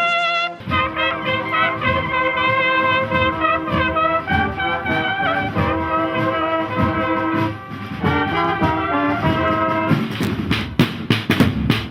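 Cornet-and-drum band playing a march: cornets carry a held, stepping melody over steady drum strokes. From about ten seconds in the cornets stop and the drums play on alone with quick, sharp snare strokes.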